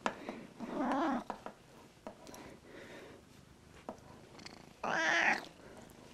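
Black-and-white domestic cat purring close up, with two short louder calls, about a second in and about five seconds in.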